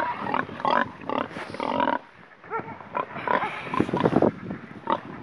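Pigs, a sow and her piglets, grunting: a string of short calls that bend in pitch.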